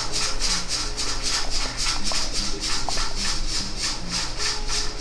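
Dog breathing rapidly in quick hissy puffs, about four a second.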